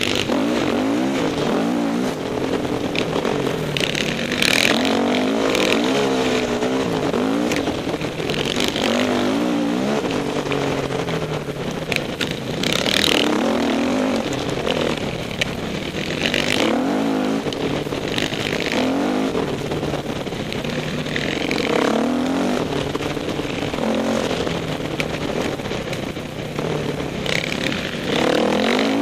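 Dirt bike engine revving up and down over and over as it is ridden along a rough trail, the pitch constantly rising and falling with the throttle. Several brief loud rushes of noise break through along the way.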